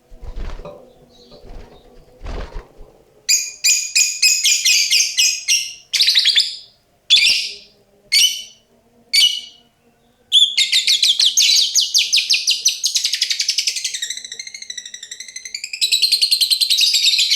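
Female lovebird calling: a run of sharp, high chirps, then from about ten seconds in a long, rapid chattering trill (the 'ngekek') that warbles in the middle. The owner finds this bird's call unclear and unlike a typical lovebird's. A few low knocks come in the first seconds.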